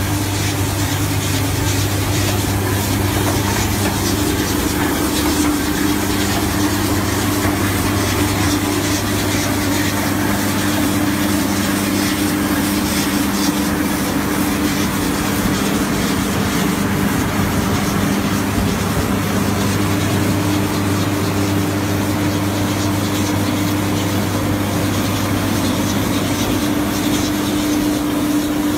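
Engine and machinery of a self-propelled brick-moulding machine running steadily, with a constant low hum.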